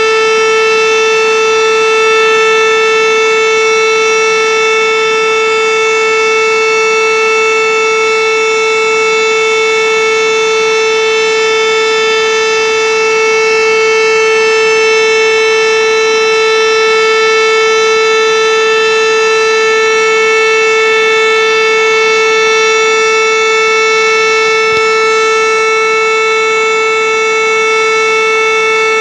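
Fire siren sounding one long, loud, steady tone whose pitch neither rises nor falls.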